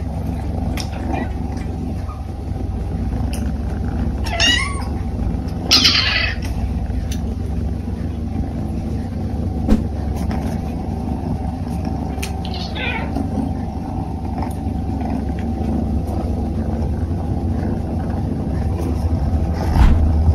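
British Shorthair kittens meowing, about four short high-pitched calls, the loudest about six seconds in, over a steady low rumble.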